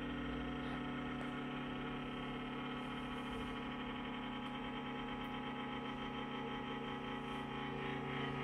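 Steady, many-toned electrical hum and whine from a freshly switched-on CNC control box and its power supply, idling without change.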